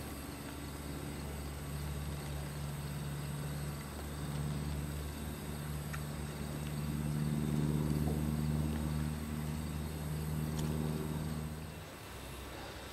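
A distant engine's low, steady drone that swells to its loudest around the middle, then drops away near the end.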